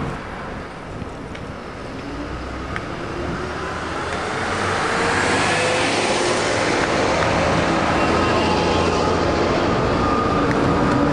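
Diesel engine of a single-decker bus running as it moves slowly past, growing louder from about four seconds in, over street traffic noise.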